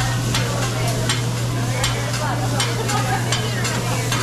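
Oil and food sizzling on a hot hibachi griddle, with metal spatulas scraping and clacking on the plate a few times a second. A steady low hum runs underneath.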